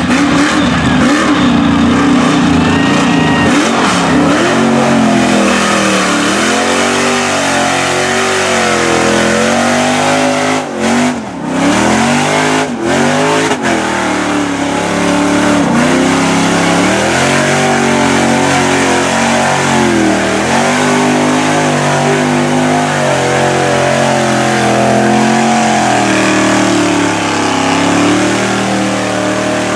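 Engine of a lifted mud truck on tractor tires revving hard while churning through deep mud, its pitch held high at first, then rising and falling again and again as the throttle is worked.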